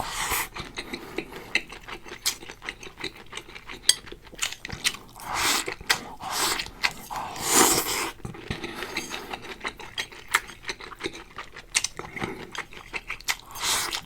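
Close-miked eating sounds from a mouthful of lobster rice: chewing with dense, irregular small clicks and mouth noises, and a few louder smacks or slurps in the middle.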